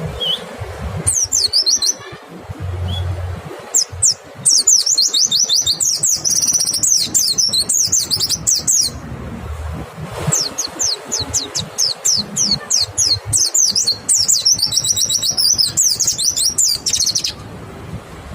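White-eye (pleci) singing its rapid 'nembak' song: fast runs of steeply falling, high whistled notes, in a short burst and then two long ones of several seconds each.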